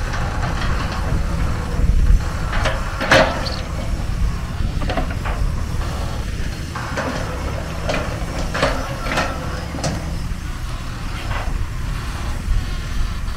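Kobelco SK250 long-reach excavator's diesel engine running steadily as it digs, with scattered sharp knocks and scrapes from the bucket working against rock and soil, the loudest about three seconds in.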